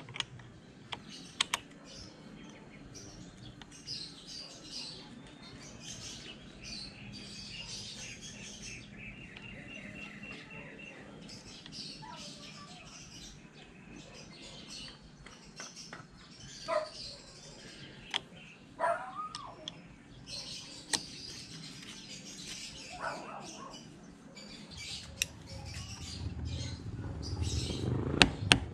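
Birds chirping and trilling, with a few sharp clicks along the way; near the end a quick run of sharp, evenly spaced taps begins.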